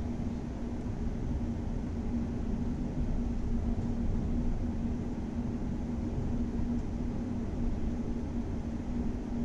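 Steady low rumble with a steady hum from inside a Renfe 470 electric multiple unit.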